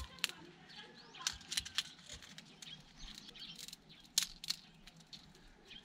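Scattered, irregular light clicks and rustles of cord being handled and pulled, with birds chirping in the background.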